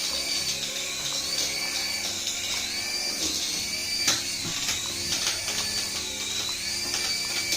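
High-pitched whine of a small electric toy motor, its pitch wavering slowly up and down, with scattered clicks and a sharp knock about four seconds in.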